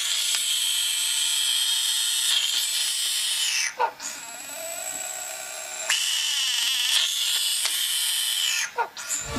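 Horned frog screaming: two long, shrill, sustained screams of about three to four seconds each, with a softer cry between them. It is the frog's defensive distress scream.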